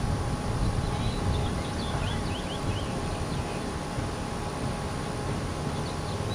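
Steady outdoor background rumble, with a few faint, short high chirps about a second in.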